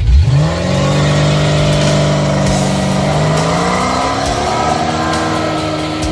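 Car engine revving: the pitch climbs in the first second, holds high and rises a little further for several seconds, then drops back near the end.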